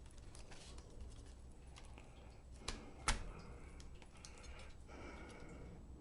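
Small clicks and taps of laptop parts and ribbon cables being handled during reassembly, with two sharper clicks about halfway through.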